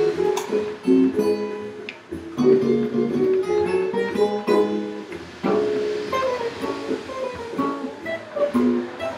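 Godin archtop guitar playing a jazz solo unaccompanied, mixing plucked chords with quick single-note runs, including a descending run a little past halfway.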